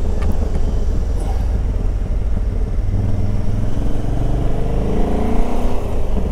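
Motorcycle engine under acceleration while riding, its pitch rising steadily for a few seconds from about three seconds in, over a constant low rumble of wind and road noise.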